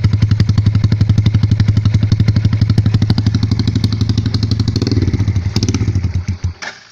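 Motorcycle engine idling through an aftermarket CHA exhaust, a loud, evenly pulsing exhaust note, which dies away and stops near the end as the engine is switched off.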